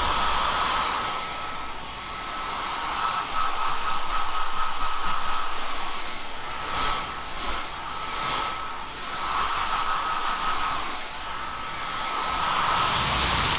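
Hair dryer blowing continuously, a steady rushing hiss with a thin whine from its motor, swelling and easing as it is moved about the hair.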